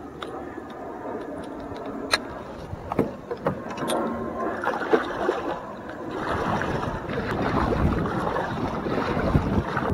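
Kayak on the water with paddle splashing, a few sharp knocks in the first half, and the splashing growing louder in the second half.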